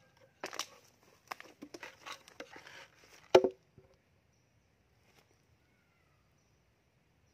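Knife scraping and tapping against an empty wooden stingless-bee hive box, with one loud wooden knock about three and a half seconds in.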